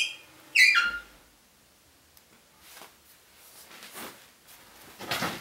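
Steel wood stove door being swung shut and latched: a metallic clank, then about half a second later a short squeal that slides down in pitch. A few faint crackles from the newly lit wood fire follow.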